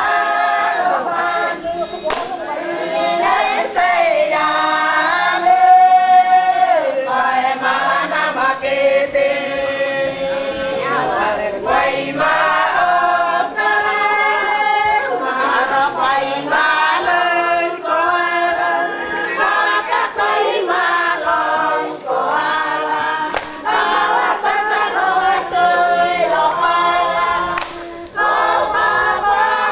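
Group of women singing a traditional Solomon Islands dance song unaccompanied, in unison with held and gliding notes. A few faint sharp clicks cut through.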